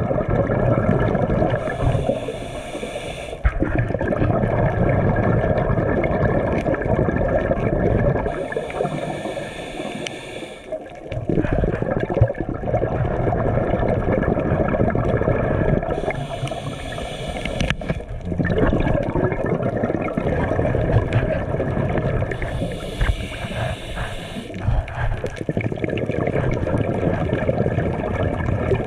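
Scuba diver breathing underwater through a regulator: a hiss drawn in for about two seconds every six to seven seconds, with bubbling and rumbling between breaths.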